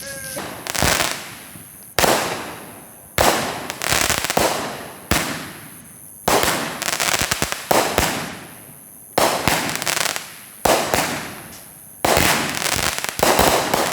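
Fireworks going off in a rapid series: about ten sharp bangs, roughly one every second or so, each followed by a crackling tail that fades before the next.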